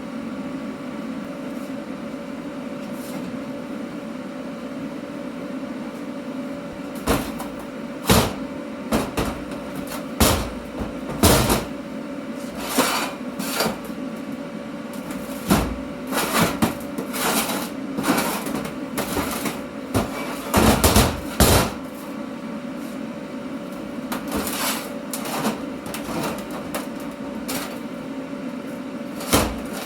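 Metalworking noise: irregular sharp clanks and short bursts of noise over a steady hum, starting about seven seconds in.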